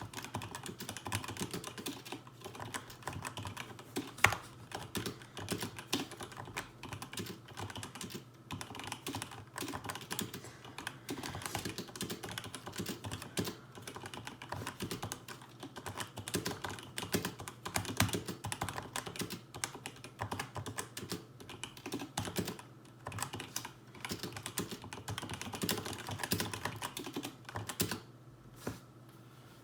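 Continuous fast typing on a Razer BlackWidow V3 mechanical keyboard with Razer Yellow linear switches: a dense, irregular patter of key presses and returns. The typing stops near the end.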